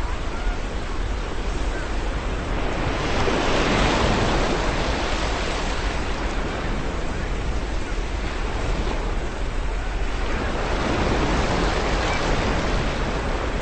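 Ocean surf: waves washing in continuously, swelling louder as a wave breaks about three seconds in and again about eleven seconds in, with a few faint seagull cries.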